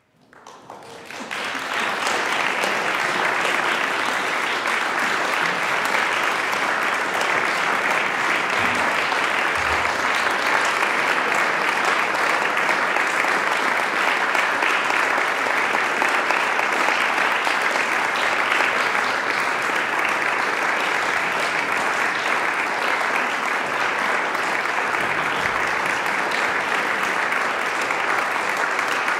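A concert audience applauding, swelling over the first two seconds and then holding steady.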